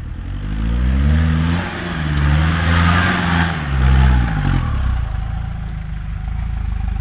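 Off-road 4x4 pickup's engine revving hard as it climbs a muddy trial section, rising and falling about three times in the first five seconds, then settling to a steady run. A high whine rides over the revving.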